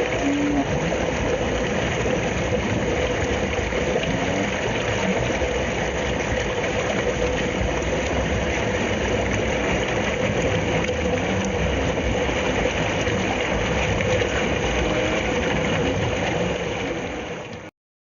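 Running water, a steady rushing flow with a faint steady tone under it, fading out and stopping near the end.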